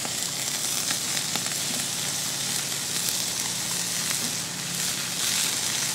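Turkey wings sizzling on the hot grate of a Weber charcoal kettle grill: a steady hiss with small scattered crackles as their juices bubble.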